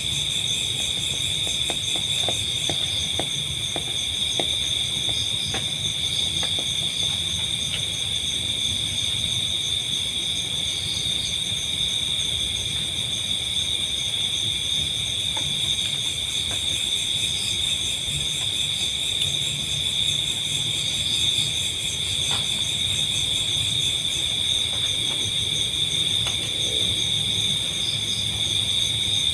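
Chorus of crickets and other insects: several steady, high-pitched trills overlap without a break, with a faint low rumble underneath.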